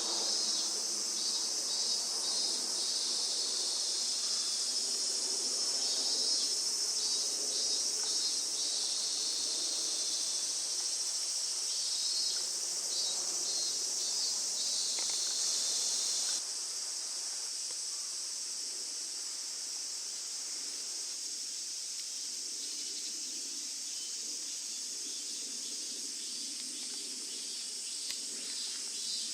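Chorus of insects: a steady high-pitched shrill with trains of rapid chirping pulses over it. It becomes quieter a little past halfway.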